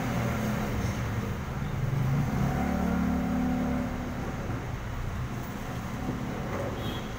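Street traffic passing close by: a vehicle engine hums low, steps up in pitch about two and a half seconds in, then fades, leaving the steady noise of passing cars.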